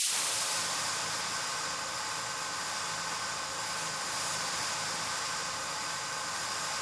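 Xfer Serum software synthesizer playing an FX preset: a sustained hissing noise texture with faint held tones inside it. It starts abruptly, is a little louder at the very start, then holds steady.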